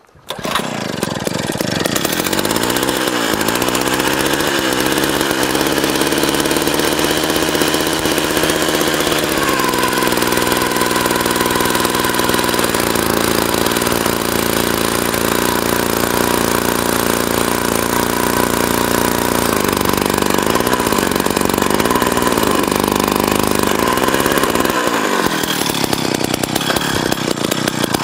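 Gas-powered ice auger's two-stroke engine starting up about half a second in and then running hard as its spiral bit drills down through thick lake ice. The engine note shifts about ten seconds in and again a few seconds before the end.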